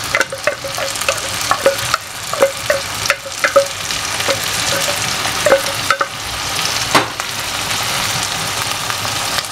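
Butter, chopped onion and garlic sizzling in a nonstick wok as flaked canned tuna drops in, with scattered short clicks and pops, most of them in the first few seconds.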